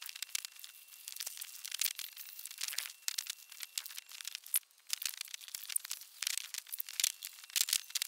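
Dense crinkling, rustling and clicking of PC parts, plastic bags and paper being handled during assembly of a computer, with a faint steady high tone underneath.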